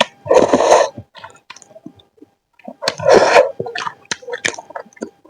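Close-miked mouth eating sounds: two loud slurps of Samyang carbonara noodles, one just after the start and another about three seconds in, with wet chewing clicks between and after them.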